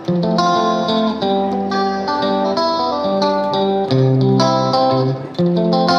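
Background instrumental music: a melody of plucked notes over chords, with a brief drop in level a little after five seconds in.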